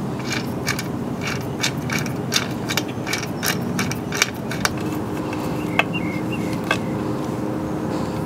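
A hand tool clicking in a steady rhythm, about two or three clicks a second, as a rear stand spool is fitted to a motorcycle swingarm. Past the middle the clicks thin out to a few single ones and a faint steady hum comes in.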